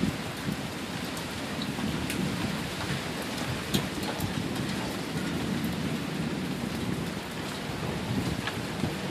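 Steady rain during a thunderstorm, with scattered drops ticking close by and a low rumble of distant thunder underneath.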